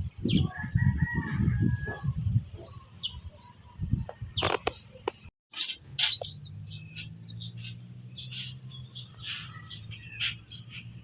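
A rooster crowing once, about half a second in, amid short high bird chirps and some low thumps. After an abrupt cut about five seconds in, birds keep chirping over a steady low hum.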